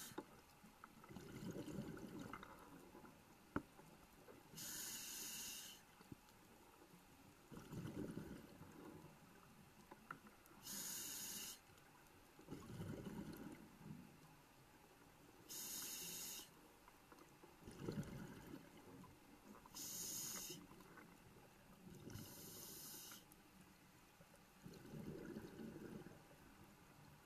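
Scuba diver breathing through a regulator underwater, faint: a short hiss on each inhale and a longer low bubbling rumble on each exhale, about one breath every five seconds.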